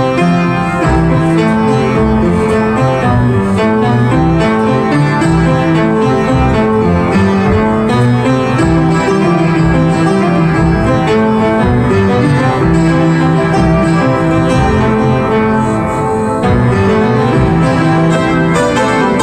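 Music track with a steady beat.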